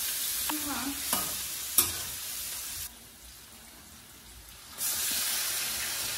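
A spicy mala xiang guo stir-fry sizzling in a stainless steel frying pan as it is stirred with a metal spatula, with a sharp tap of the spatula on the pan a little under two seconds in. The sizzle drops much quieter for about two seconds and comes back loud about five seconds in.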